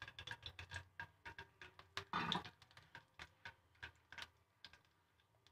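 Cumin seeds frying in hot oil in a metal wok, giving irregular small crackles and pops, several a second. A brief louder sound comes about two seconds in.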